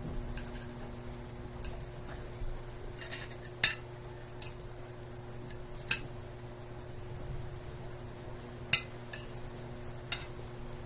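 Spoons and forks clinking against plates during a meal: a few sharp clinks a couple of seconds apart, the loudest about three and a half seconds in, over a steady low hum.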